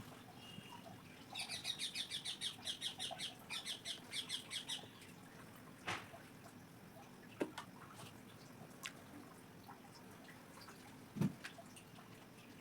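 A rapid run of high chirps, about seven a second for some three and a half seconds, like a small bird calling, then a few scattered single clicks.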